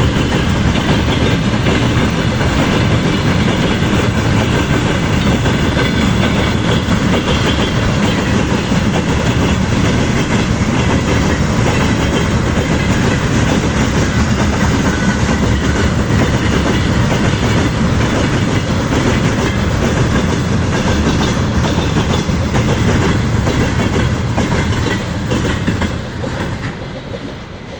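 A passing train's wheels clattering over the rail joints, a loud, steady rumble that dies away in the last few seconds.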